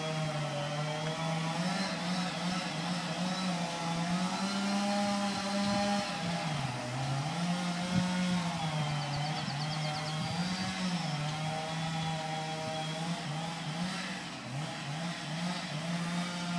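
Chainsaw running at high revs through a cut in a grand fir, its pitch sagging and recovering several times as the chain loads in the wood.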